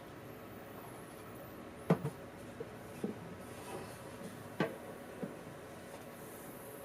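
A few light clicks and knocks over quiet room tone, the two loudest about two and four and a half seconds in, with fainter ones between.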